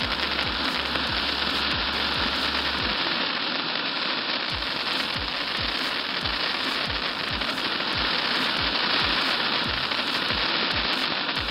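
Santa's 16-in-1 combo super fountain firework spraying sparks with a steady, loud hiss, over background music with a steady low beat.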